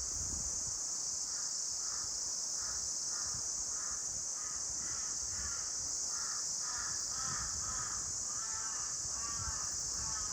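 A bird gives a long run of short, harsh, repeated calls, about two to three a second, starting a little over a second in. Behind it is a steady high hiss and a low wind rumble.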